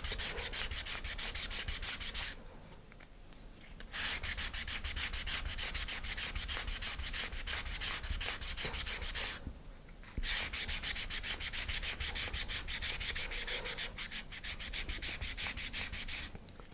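Sandpaper on a sanding bar rubbed quickly back and forth against the tab of a thin wooden electronics-bay sled, sanding it down so it will slide through a bulkhead disc's slot. The scraping strokes stop twice briefly and end shortly before the end.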